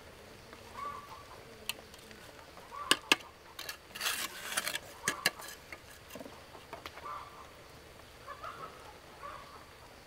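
Domestic fowl giving short calls every second or two, with several sharp knocks and a brief rustling scrape about four seconds in, the loudest moment.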